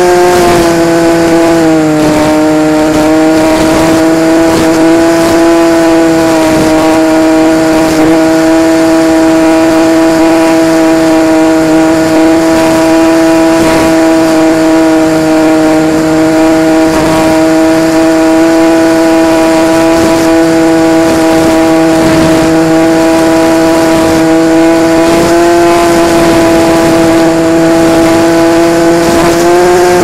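Propeller and motor of an RC model plane droning steadily at cruise throttle, heard from a camera mounted right behind the propeller. The pitch dips slightly about two seconds in and rises again near the end as the throttle changes.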